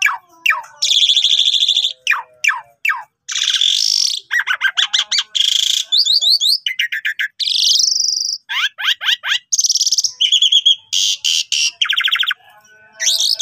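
Javan pied starling (jalak suren) singing loudly and without let-up. The song is a varied string of rapid rattling trills, harsh buzzy phrases and clicks, with a rising whistle about halfway through and short breaks between phrases.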